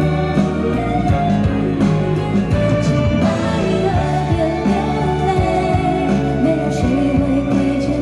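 Live band playing a ballad with a sung melody over it, with guitar and a regular drum beat.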